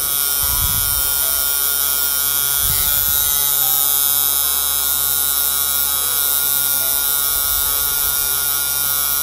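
Electric tattoo machine buzzing steadily without a break.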